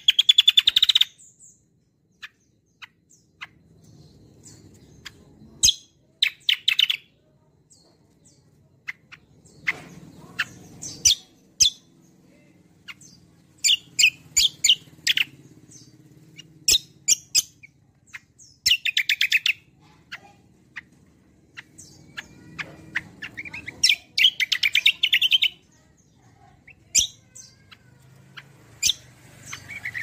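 Caged kecial kombo songbird singing: loud bursts of fast, rattling repeated high notes every four to five seconds, with short single chirps and ticks in between.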